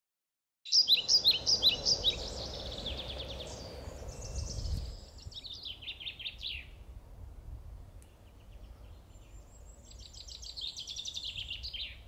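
Wild songbirds singing: quick runs of repeated high chirps in three phrases, cutting in about a second in, the first phrase the loudest and the last near the end. A low steady rumble lies underneath.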